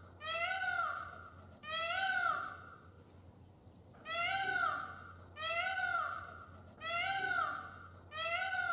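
A cat meowing six times in a row, each meow rising then falling in pitch.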